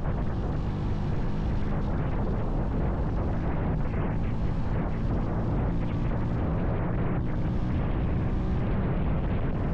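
Vitacci XMT 250 motorcycle running at highway speed, about 50 mph: a steady wind rush buffeting the microphone over the engine's even drone.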